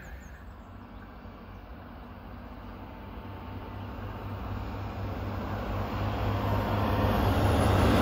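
Two-car Stadler Regio-Shuttle RS1 (class 650) diesel railcar approaching, its engine drone and wheel noise growing steadily louder as it nears.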